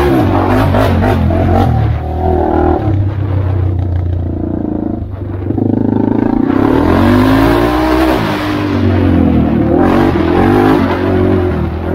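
Honda 400EX ATV's single-cylinder four-stroke engine revving up and down as the throttle is worked, easing off a few times and then climbing strongly again about halfway through.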